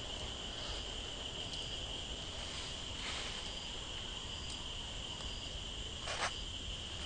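Insects droning in a steady, continuous high-pitched buzz, with a brief sharp sound about six seconds in.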